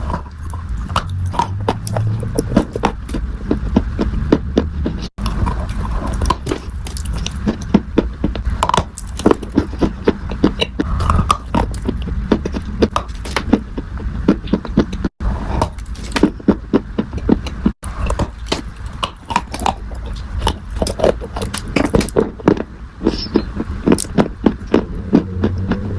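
Dry clay being crunched: a dense, continuous run of crackling, crumbling snaps, broken by a few split-second dropouts.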